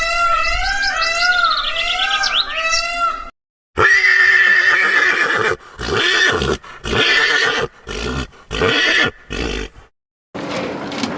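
Repeated short arched calls from a small animal, about two a second. After a brief cut, a horse neighs loudly, a long call that breaks into several shorter bursts.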